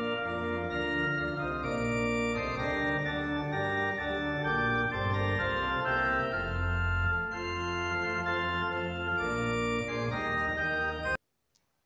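Background instrumental music of held, organ-like keyboard chords over a bass line, the notes changing every second or so; it cuts off suddenly near the end.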